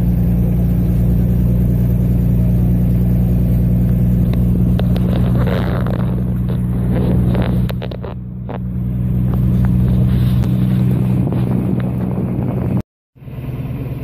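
Engine of a river vehicle ferry running steadily at a constant speed during the crossing: a low, even hum. It dips slightly about eight seconds in and cuts out for a moment near the end.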